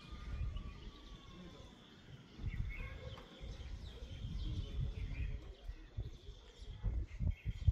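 Wind buffeting the microphone in uneven gusts, with short bird chirps here and there and a steady high-pitched whine behind them.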